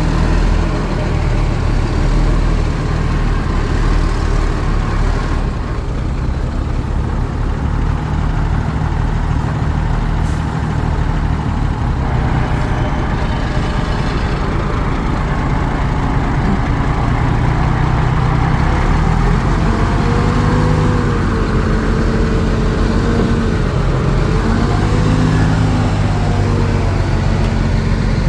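Heavy diesel engines of earthmoving machinery running steadily. In the last third a higher, wavering tone rises and falls over the engine sound.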